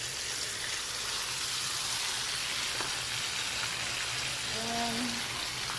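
Salmon fillets frying in oil, butter and garlic, with a steady sizzle, just after lemon juice has gone into the pan.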